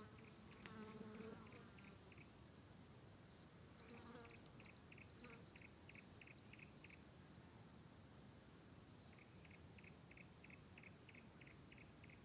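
Faint insects chirping: one keeps up a steady chirp about four times a second, pausing for a few seconds midway, while sharper, higher chirps come in clusters. A faint low call sounds near the start and again about four seconds in.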